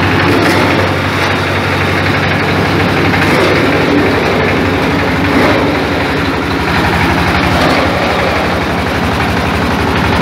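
Cassava chipping machine running steadily while slicing cassava into chips: a loud, continuous mechanical noise with a low hum.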